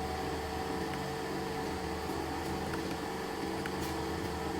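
Steady machine hum holding several constant tones over a faint hiss, with a few faint ticks.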